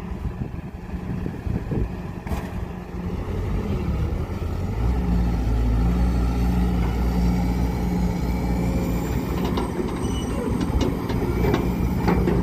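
Heavy diesel engine of an excavator working while loading a truck, growing louder over the first few seconds and then running steadily under load. Several sharp knocks and clanks come near the end.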